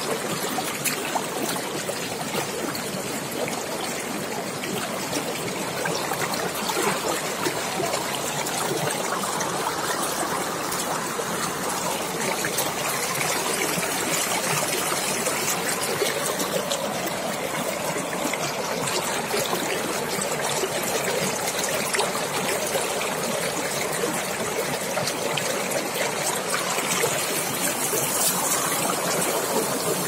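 Waterfall: water falling and splashing steadily, an even rushing with small splashes through it.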